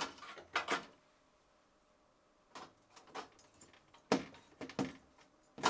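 Needle-nose pliers gripping and pulling the wire connectors off a refrigerator defrost heater's terminals: a scatter of short, sharp clicks and knocks of metal on metal and plastic, spread unevenly.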